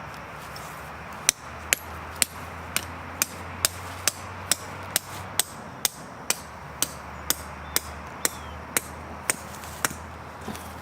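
Tent stakes being hammered into the ground: a steady run of about nineteen sharp strikes, roughly two a second.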